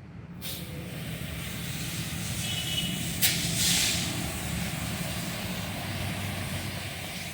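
High-pressure water spray starting up with a steady loud hiss about half a second in, over the low hum of a running engine, with one sharp click about three seconds in.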